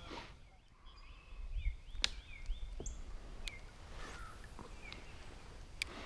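Birds calling with short, repeated chirps, broken by a few sharp clicks at about two, three and a half, and six seconds.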